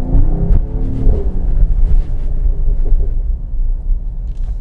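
Mercedes-AMG GT 43 4-door Coupé's turbocharged inline-six accelerating in Sport Plus mode, the revs climbing in about the first second and then holding loud and steady with a deep rumble.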